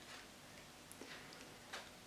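Faint rustling and crinkling of a folded sheet of copy paper being pressed and shaped by hand, in a few short soft scrapes.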